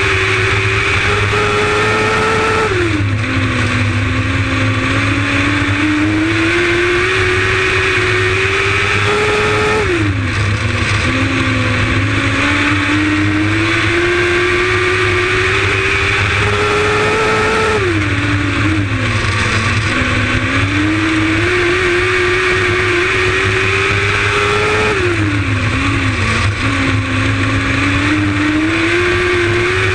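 Onboard sound of a lightning sprint car's 600cc motorcycle engine at racing speed on a dirt oval. Its pitch climbs steadily, then drops sharply each time the driver lifts for a corner, four times about seven seconds apart, before building again.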